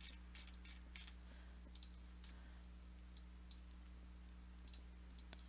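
Near silence over a low steady hum, broken by faint, irregular computer mouse clicks as controls are selected and keyframes picked in the animation software.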